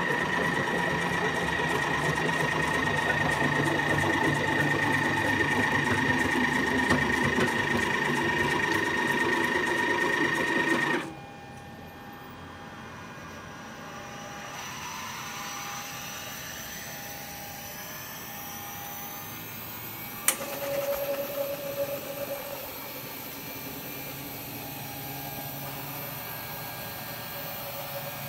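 FM30C automatic-tool-change spindle on a 5-axis CNC machine, turning at 10,000 RPM and cutting metal: a loud steady whine with a fast fine rattle. About eleven seconds in the cut stops and the sound drops to a quieter machine hum; near twenty seconds there is one sharp click, then a short rattle.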